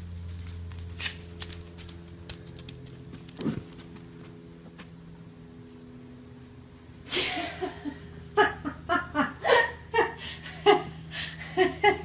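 A steady low hum with a few faint clicks, then about seven seconds in a sudden breathy outburst that turns into a person laughing in short, repeated bursts.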